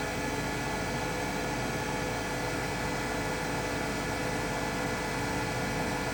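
Steady hum and whine of a portable power station's cooling fans and inverter under a heavy load of about 1600 watts, with several steady tones over an even rush of air.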